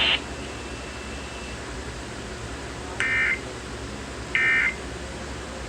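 Emergency Alert System end-of-message data bursts on an FM radio broadcast: short, buzzy digital bursts about 1.4 s apart, two in full and a third beginning right at the end, marking the close of the alert. Under them is a steady hum and hiss from the receiver.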